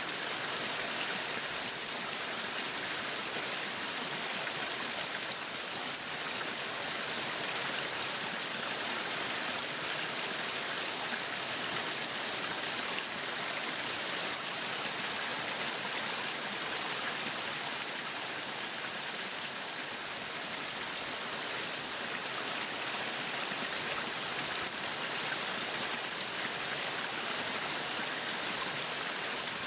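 Meat sizzling on a yakiniku grill: a steady, even hiss with no break.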